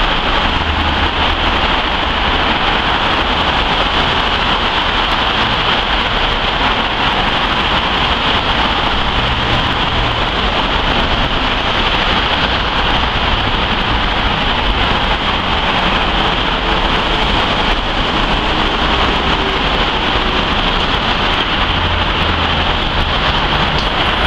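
Steady wash of highway traffic noise: cars and trucks passing on a multi-lane expressway, mostly an even hiss of tyres on the road with a low rumble underneath.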